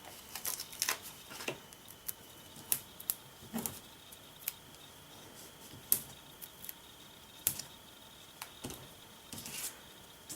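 Scattered light clicks and taps of paper handling: foam adhesive dimensionals peeled from their backing sheet and pressed onto cardstock. A faint steady high tone runs underneath.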